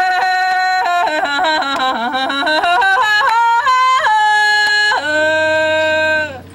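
A woman singing a Haitian traditional song unaccompanied, with quick ornamented runs and sudden leaps in pitch, her hand clapping on her chest for a beat. It closes on a long held note that breaks off near the end.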